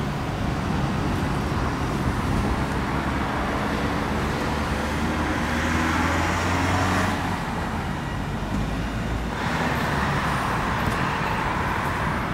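Street traffic noise: passing vehicles' engines and tyres, with a low, steady engine hum that fades out about seven seconds in.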